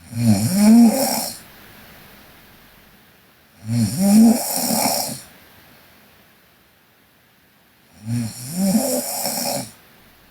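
A young woman snoring in her sleep: three snores about four seconds apart, each lasting over a second.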